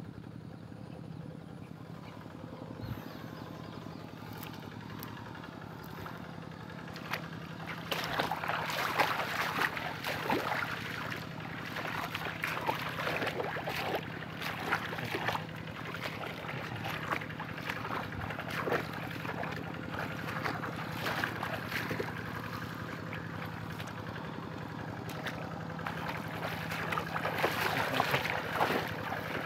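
Two-wheel hand tractor engine running steadily. From about seven seconds in, it is joined by irregular splashing and sloshing of water and mud as the machine works through the flooded rice paddy.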